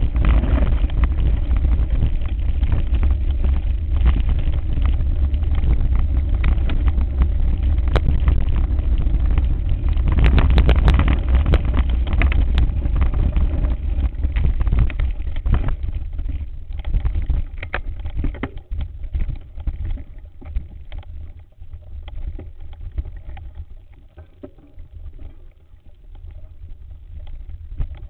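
Mountain bike ridden over a rough dirt singletrack: wind rumbling on the microphone with the rattle and knocks of the bike and mount jolting over the ground. About halfway through it grows much quieter, leaving scattered clicks.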